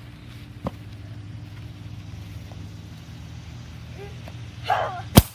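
A stomp-pedal air rocket launcher fired with one sharp thump of the foot pedal, less than a second in, over a steady low hum. Near the end comes a brief voice, then a single loud, sharp thump.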